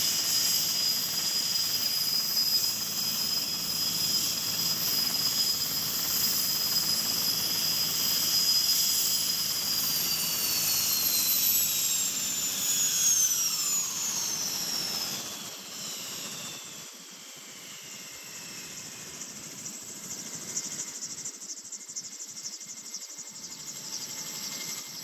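Erickson S-64 Aircrane's twin turboshaft engines whining steadily, then the whine slides down in pitch and fades from about halfway through: the turbines spooling down at engine shutdown.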